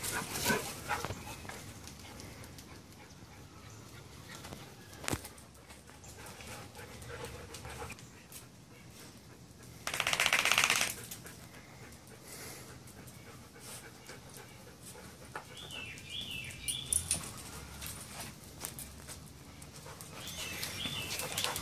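Wet dogs moving about after a bath, with light clicks and rustles throughout. About ten seconds in there is one short, loud, rapid rattling burst. High chirping notes come around sixteen seconds and again near the end.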